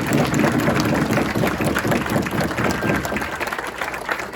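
Audience applauding just after a choir song ends: a dense patter of many hands clapping, slowly dying down near the end.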